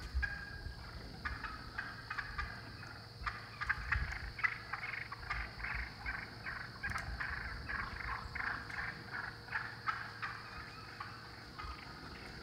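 Wild hen turkeys giving fighting purrs, a rapid, broken run of short rattling calls that thickens about three seconds in and eases near the end. The sound of a flock of hens fighting to settle a dispute over pecking order.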